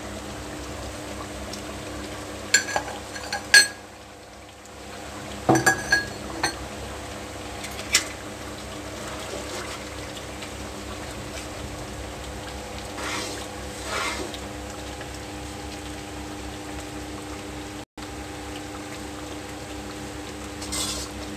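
Metal slotted spoon clinking and scraping against a metal karahi as a simmering curry is stirred, with a cluster of sharp clinks in the first several seconds and softer ones later. A steady hum runs underneath.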